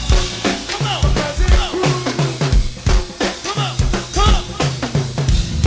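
Go-go band groove without vocals: a drum kit with bass drum, snare and rimshots in a steady beat, with short pitched notes over it.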